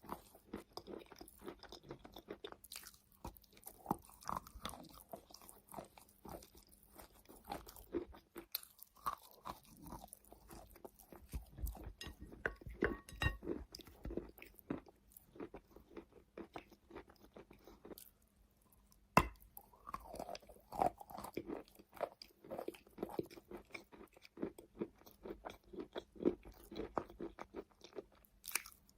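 Close-up biting and chewing of wet chalk: soft, irregular crunches, with a short pause about two-thirds of the way through that ends in a sharp click before the chewing goes on.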